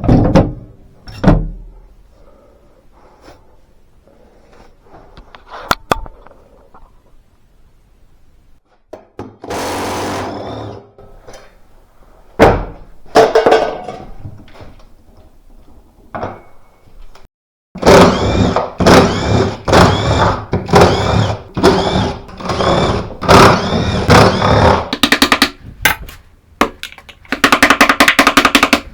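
Hand-tool repair work on a Bosch washing machine. Scattered knocks come first, then from about two-thirds of the way in a run of ringing metal strikes, roughly two a second, and near the end a fast rattling run of strokes.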